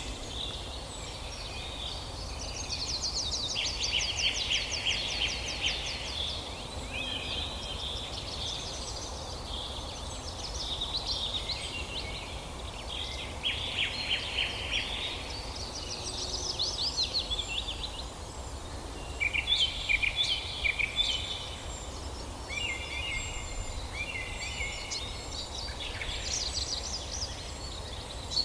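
A chorus of several songbirds singing and chirping at once, with fast trills and repeated short notes, over a steady low background hum.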